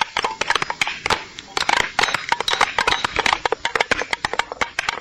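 Dense, irregular clattering knocks, many a second, with no voice over them.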